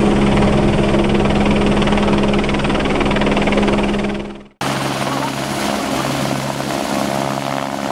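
Single-engine turbine helicopter, an AS350 AStar, running steadily in a hover with its main-rotor thrum and engine drone. The sound drops out abruptly about four and a half seconds in and comes straight back with a slightly different tone.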